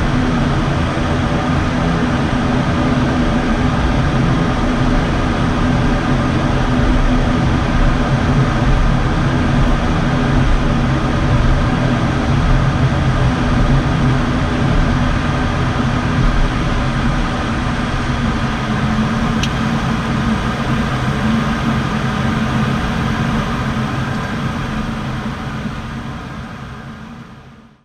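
Steady drone of an ATR 72-600's Pratt & Whitney PW127 turboprop engines and propellers heard inside the cockpit at low power after landing, with several steady tones under the noise. It fades out near the end.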